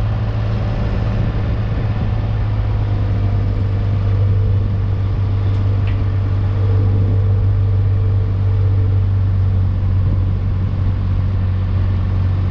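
Kubota utility vehicle's engine running steadily with a deep, even hum, heard from inside its cab.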